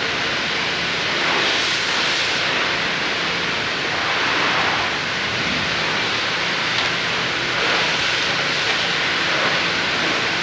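Pressure washer spraying water onto a soaped car: a steady hiss of spray with a faint low hum underneath.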